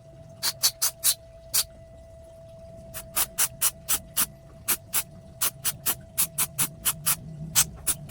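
Quick spray bursts of cleaner, about twenty short hissing pulses in irregular clusters, over a steady faint tone.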